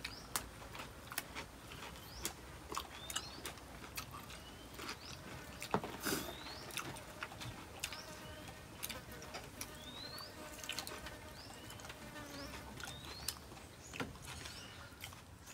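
Outdoor insect ambience with short rising chirps that repeat about once a second, over scattered sharp clicks and taps.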